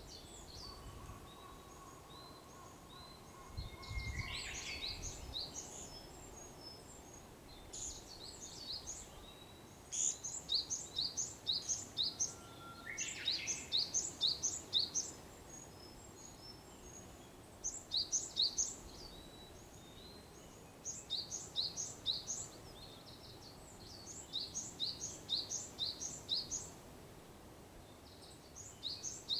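Japanese bush warbler (uguisu) singing its hoo-hokekyo song twice, a long held whistle ending in a quick rising flourish, about a second in and again about twelve seconds in. Another small bird gives bursts of rapid, high repeated chirps every few seconds.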